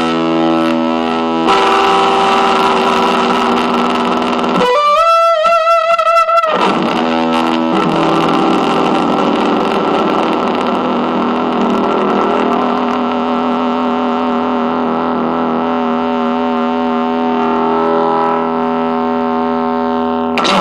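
Electric guitar played through a Fuzz Aldrin one-knob fuzz pedal, heavily distorted. A high lead note with wide vibrato comes in about five seconds in, then a long fuzzed chord is left to sustain until it cuts off at the end.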